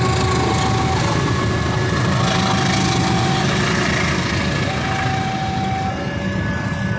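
A passenger train running through a level crossing, a loud steady rumble with rail noise. Over it the crossing's new electronic siren sounds a two-tone warning, switching between a lower and a higher tone about every second and a half.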